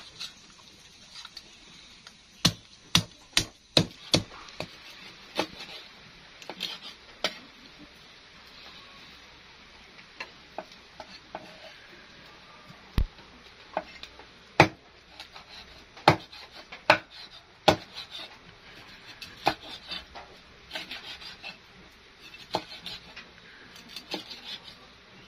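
Cleaver chopping a catfish into pieces on a wooden chopping board: sharp knocks, a quick run of about five near the start and more in clusters later. Softer scraping and rubbing of the blade and fish on the board fills the gaps.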